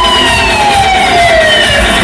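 A loud siren-like wail falling slowly in pitch from its peak and dying out near the end, over a pulsing bass beat from a DJ sound system.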